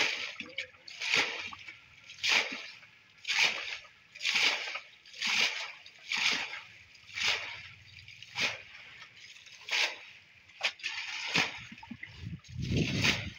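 Muddy water bailed out of a small pond with a plastic bucket: about one splash a second as each scoop is flung onto the bank, with a heavier, deeper slosh near the end. The pond is being bailed dry to catch the fish.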